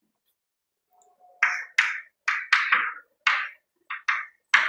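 Chalk writing on a chalkboard: a quick series of about nine short, scratchy chalk strokes, starting about a second and a half in.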